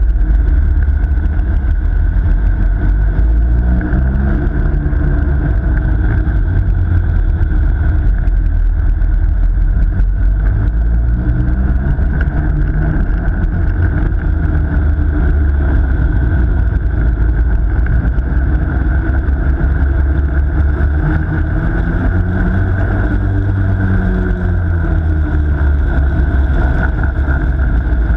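An ice kart's motor, heard on board while lapping an ice track, under a loud low rumble. Its pitch rises and falls a few times as the kart speeds up and slows through the corners.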